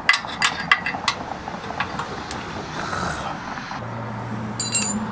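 Metal hand tools clicking and tapping against the steel trailer frame, several sharp clicks in the first second, then a single ringing metal clink near the end. A low steady hum starts about two-thirds of the way through.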